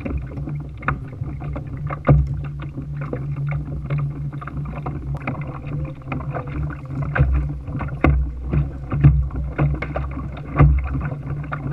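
Small waves lapping and slapping against the hull of a Hobie kayak, with a steady low rumble and irregular knocks.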